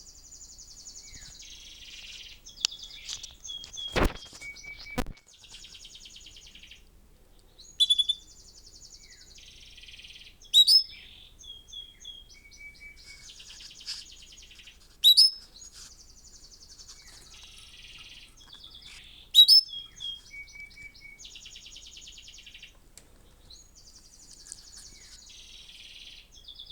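Canary song played back from a recording: phrases of fast, high trilled rolls with pauses between them. A live canary answers with loud, sharp chirps four times, and there are two knocks about four and five seconds in.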